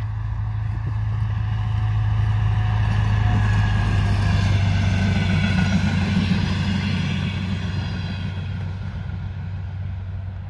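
DR1A diesel multiple unit passing close by: steady engine drone and wheels on the rails, swelling to its loudest about halfway through as the coaches go by, with the engine note dipping slightly, then fading as the train moves away.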